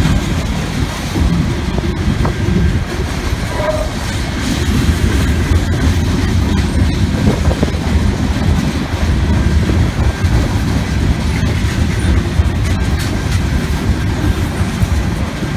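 Mixed freight train of boxcars and covered hopper cars rolling past at a grade crossing: a steady, loud, low rumble of wheels on rail.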